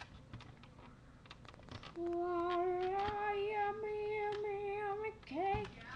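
A young voice singing one long held note that creeps slowly upward in pitch for about three seconds, then two short upward-sliding notes near the end. Before the singing there are only a few faint clicks.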